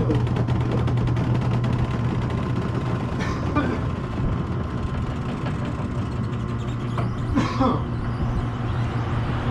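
Tow vehicle's engine running steadily with a low, even hum while it backs a boat trailer down a launch ramp. Two brief wavering sounds come about three and a half and seven and a half seconds in.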